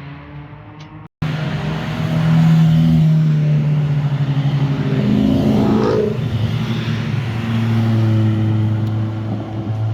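Car engine and exhaust running hard as a car drives past, its pitch rising about halfway through as it revs up, following a sudden cut about a second in.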